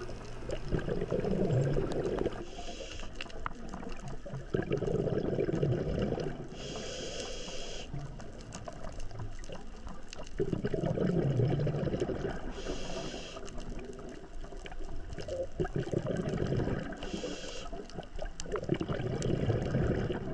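Scuba diver breathing through a regulator underwater. A short hiss on each inhale is followed by a longer burble of exhaled bubbles, repeating about every five seconds.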